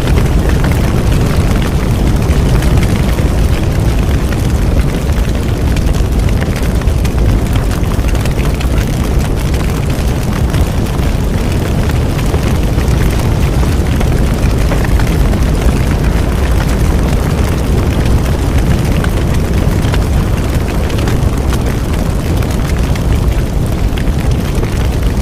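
A bonfire burning, with a steady low rumble and scattered small crackles and pops.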